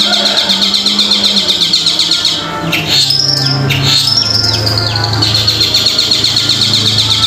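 Long-tailed shrike (cendet) singing: a fast, even chatter of about six notes a second, then, about two and a half seconds in, a run of high whistled notes sweeping downward. Under the song runs a low steady tone that drops in pitch partway through.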